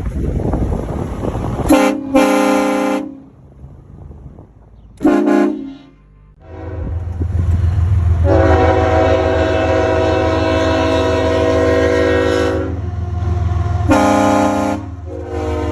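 Car-mounted air train horn sounding a chord in a series of blasts: two short ones near the start, a short one about five seconds in, a long blast of about four seconds from about eight seconds in, and another short one near the end. A low steady hum runs underneath from about halfway through.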